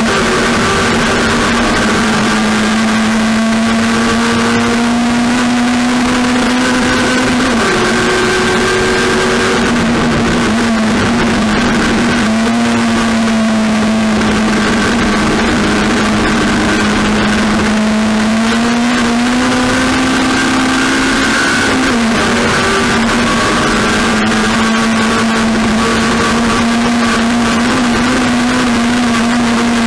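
Race car engine running at high, near-steady revs, its pitch dipping briefly a few times.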